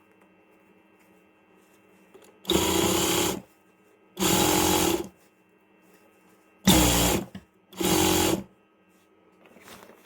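Electric sewing machine stitching a zipper onto a jacket in four short runs, each lasting under a second, with pauses between them.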